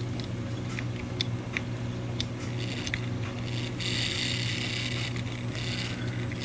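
Brass clock movement being worked by hand: a few light clicks from its levers and wheels, then from about four seconds in a steady, high whirring from the movement's wheelwork, over a low constant hum.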